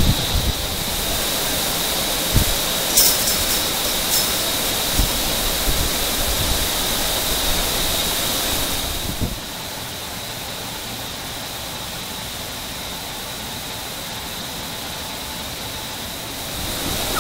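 Steady rushing noise of large industrial ventilation machinery with a thin high whine running through it, and a few low bumps. The noise drops somewhat in level about nine seconds in.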